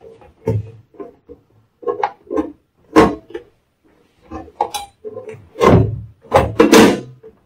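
A UPS battery backup's chassis cover being slid and pressed back onto the unit: a run of irregular knocks and short scrapes, with the loudest clunks about three seconds in and a cluster of longer scraping clanks near the end as it is seated.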